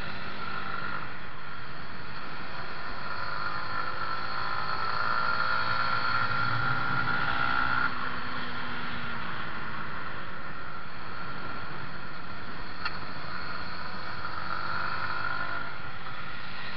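Yamaha MT-125's single-cylinder four-stroke engine under acceleration at track speed, with wind rushing over the onboard camera. The engine note climbs in pitch for a few seconds and drops off suddenly about eight seconds in, then builds again near the end.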